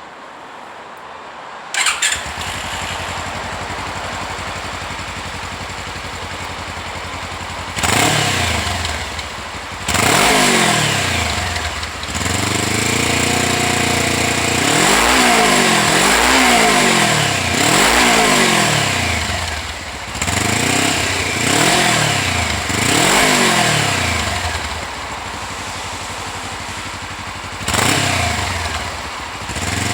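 Suzuki V-Strom 250 parallel-twin engine with an SP Tadao Power Box aftermarket silencer, starting up about two seconds in and idling. From about eight seconds in it is revved in a series of quick throttle blips, the pitch rising and falling with each one.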